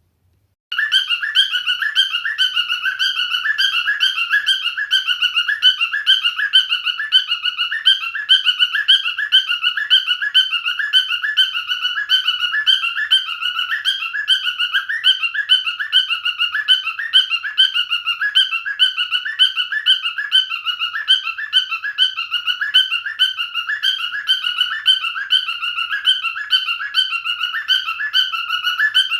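Cockatiel chirping and whistling in a rapid, unbroken stream of repeated short notes, starting just under a second in.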